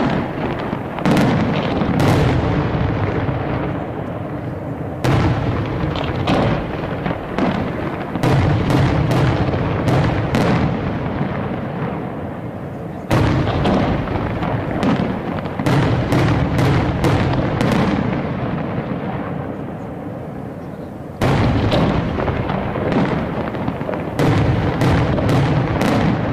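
Aerial fireworks display: shells bursting in rapid volleys of sharp bangs, each volley trailing off into a rumble. New volleys start abruptly about 5, 13 and 21 seconds in.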